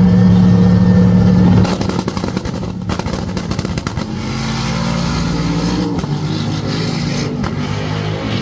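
Drag-racing car engines at the start line of a drag strip: a loud, steady engine drone that breaks off a little under two seconds in, followed by rougher, crackling engine and exhaust noise as the cars pull away and run down the track.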